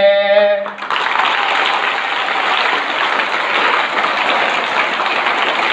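A man's sung voice holds the last note of a recited Hindi couplet and stops within the first second. A large crowd of schoolchildren then applauds, steady and even.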